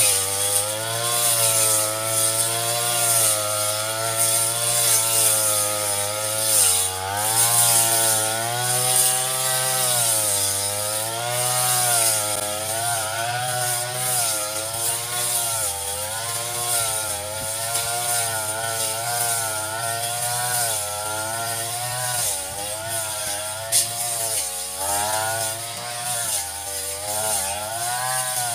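Brush cutter engine running while cutting grass and weeds, its pitch rising and falling constantly as the throttle is worked, with a steady high hiss over it. A single sharp tick near the end.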